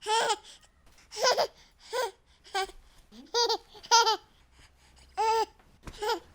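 A baby laughing in short, high-pitched squeals and giggles, about eight in a row with brief pauses between them.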